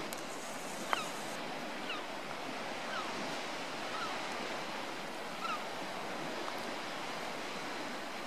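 Steady rushing outdoor noise of wind and water, like distant surf. A few short, high chirps come about once a second over the first five seconds.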